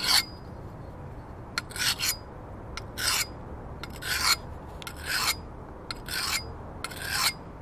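Coarse sharpening stone rasping along a hatchet's blade in short strokes, about one a second, some in quick pairs: the first, coarse-grit sharpening of one side of the edge.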